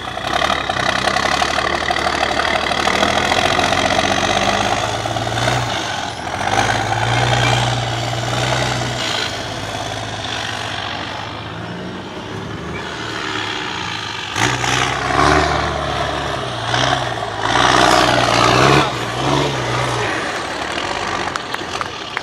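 Diesel engine of a MAN 8x8 trial truck working hard under load as it climbs over dirt mounds, the revs rising and falling. Near the end the engine revs up in several short, sharp surges.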